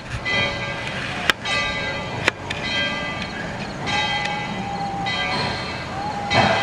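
Steam locomotive's bell ringing, about one stroke a second, as ET&WNC No. 12 approaches.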